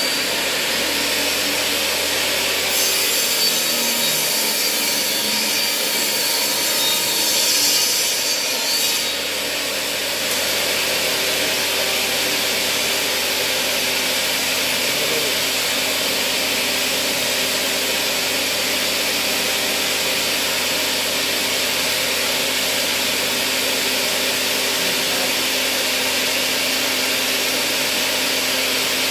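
Stanley benchtop table saw running at full speed, its blade cutting through a wooden board from about three to nine seconds in with a harsher, brighter sound. After the cut it spins freely with a steady machine tone.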